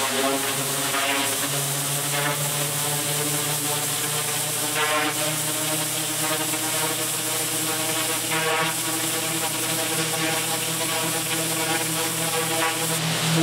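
Pressure washer running steadily: a constant machine hum under the hiss of the high-pressure water jet blasting weeds and dirt off brick pavers.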